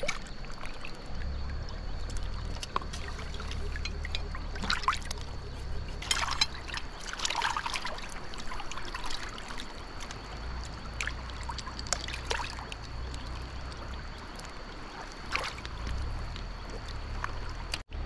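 Water trickling and running steadily, with intermittent short scrapes and splashes from fish being cleaned by hand.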